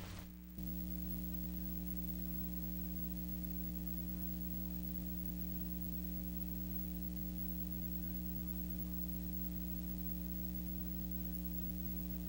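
Steady electrical hum over a faint hiss, coming in abruptly about half a second in as the last of the closing music dies away.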